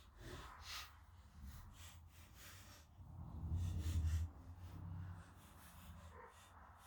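Faint handling sounds as small nuts are worked by hand onto bolts in a cramped spot: scattered light clicks and scrapes, with a low rumble about three seconds in.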